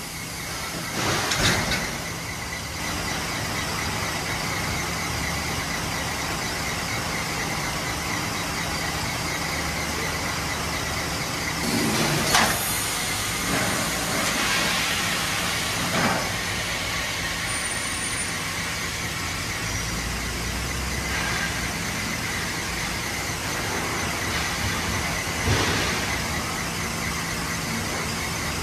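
Large industrial thermoforming machine cycling, its platens moving, over a steady hum with a constant high whine. Four sudden louder bursts cut through: about a second in, twice near the middle, and near the end.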